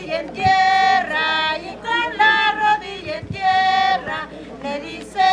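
Women singing a Christmas villancico in short phrases of held, sliding notes.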